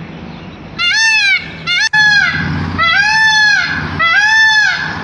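Indian peafowl (peacock) calling: a run of about five loud cries in quick succession, each rising then falling in pitch, with a sharp click about two seconds in.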